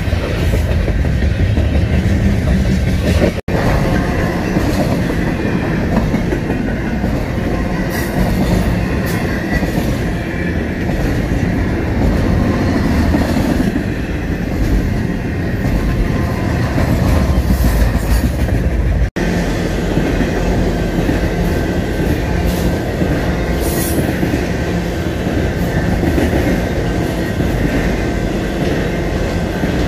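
BNSF freight train cars, mostly intermodal stack and trailer cars, rolling steadily past at close range: a continuous heavy rumble of steel wheels on rail with rhythmic clickety-clack over the joints. A few brief high wheel squeals stand out about a third of the way in and again past the middle.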